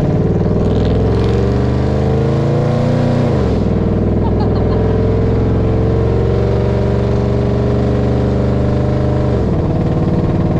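Straight-piped exhaust of a 2001 Toyota Tundra pickup under hard acceleration. The engine note climbs, drops sharply about three seconds in at a gear change, climbs again more slowly, and drops once more near the end.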